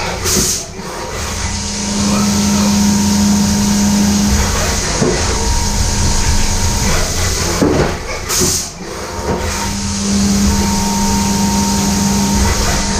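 Brother CNC machine milling an 80% AR-15 lower receiver: a steady mechanical hum over hissing noise, with the hum dropping out for a few seconds in the middle and the level dipping briefly twice.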